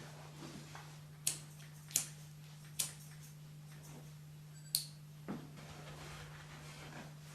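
Hairdressing scissors snipping four times at uneven intervals, sharp metallic clicks, the last with a brief ring, then a softer click, over a steady low electrical hum.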